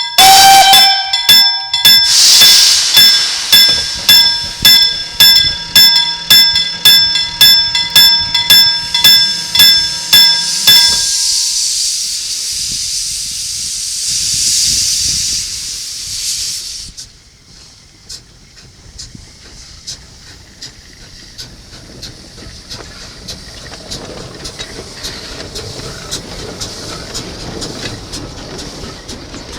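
LM Ericsson KLD-43 mechanical level-crossing bell ringing with steady, even strikes, about one and a half a second, until it stops about 11 seconds in. A narrow-gauge steam locomotive then hisses steam until about 17 seconds in, followed by quieter rumbling and clicking of the train passing over the crossing.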